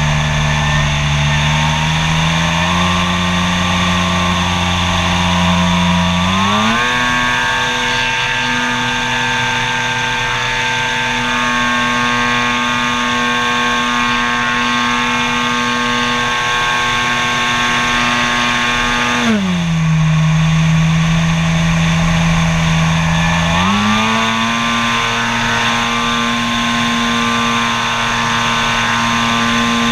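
A model airplane's engine running in flight, heard from a camera on the plane, over steady air rush. Its pitch steps up in stages over the first several seconds and holds high, drops sharply about two-thirds of the way in as the throttle is pulled back, then rises again a few seconds later.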